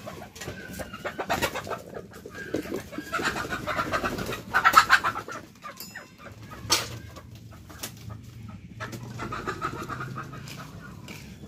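Chickens clucking in bursts, loudest about four to five seconds in and again near the end, with scattered clicks and a sharp knock in between.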